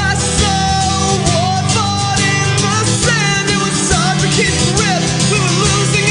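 Rock band playing at full volume: guitars, bass and drums, with a melodic line over the top that bends up and down in pitch.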